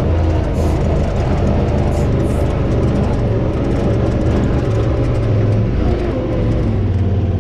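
Engine of a Honda Pioneer side-by-side utility vehicle running steadily under way, a loud low hum with rumble and rushing noise, easing slightly about six seconds in.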